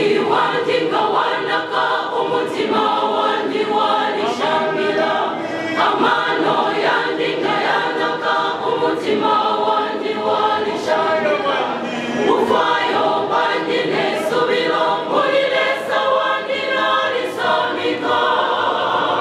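Church choir singing a hymn in harmony, unaccompanied, with several voices holding sustained notes together.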